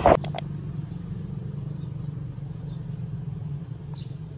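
A moment of wind-and-motor noise that cuts off at once with a couple of sharp clicks, then a steady low hum with faint bird chirps over it.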